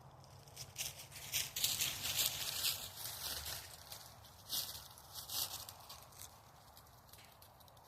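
Dry rustling and crackling, a dense run of scratchy clicks for about five seconds that then dies away.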